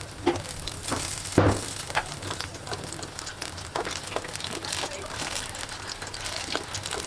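Batter-coated paneer pakoras deep-frying in hot oil: a steady sizzle with frequent crackles and pops, the loudest about a second and a half in, while a slotted spoon stirs them in the pan.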